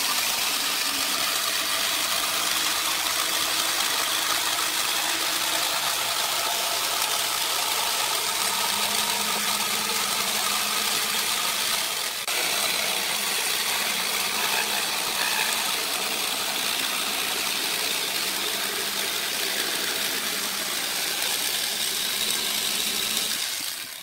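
Electric jigsaw running steadily as its blade cuts through a wooden board, with a brief dip about halfway through and stopping near the end.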